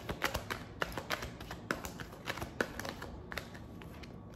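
Deck of tarot cards being shuffled by hand: a quick, irregular run of light card clicks and slaps that thins out near the end.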